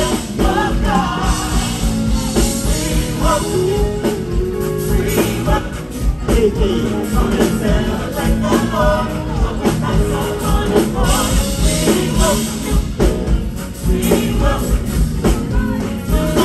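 Live gospel band playing with a lead voice singing over a steady drum beat and bass, run through the stage sound system during a sound check.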